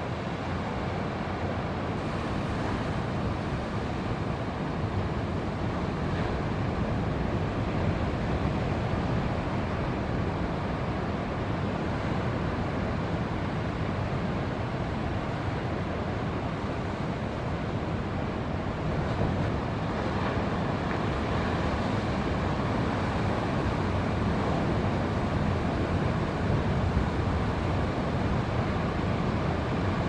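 Steady rush of ocean surf breaking, mixed with wind on the microphone.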